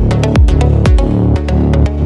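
Electronic dance music with a steady kick drum about twice a second and sharp percussion hits between the beats.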